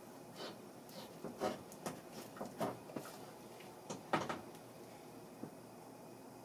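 Light clicks, taps and rustles of engine parts being handled by gloved hands at a workbench: a scattered run of short knocks through the first four seconds or so, the sharpest about four seconds in, as parts are set down and the camshaft is picked up.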